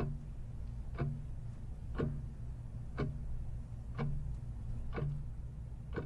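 A clock ticking slowly, one tick a second, over a steady low hum.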